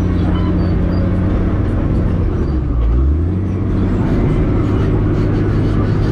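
Komatsu D65 bulldozer's diesel engine running steadily as it works clay; its note drops lower about halfway through.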